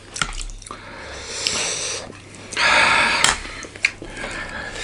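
Close-up eating sounds: chewing with small wet clicks, and breathing through a cold-blocked nose, with a loud wheezy sniff lasting about a second a little past halfway.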